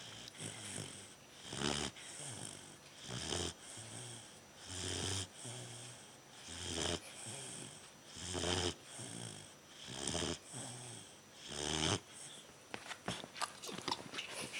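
Three-month-old Bernese mountain dog puppy snoring in her sleep: a regular rhythm of low-pitched snores about every second and a half, with softer breaths between them. About two seconds before the end the snoring stops and only a few small clicks are left.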